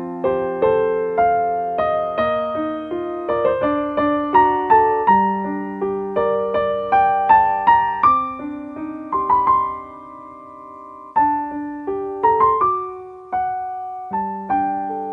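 Slow ambient instrumental music of struck notes and chords that ring and fade one after another. It settles into a quieter held chord for a couple of seconds past the middle, then the notes resume.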